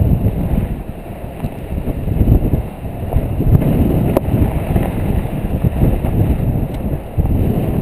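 Heavy wind buffeting on a GoPro Hero 2's microphone on the outside of a Jeep Wrangler driving on a sand track, a gusty low rumble that rises and falls. One sharp tick about four seconds in.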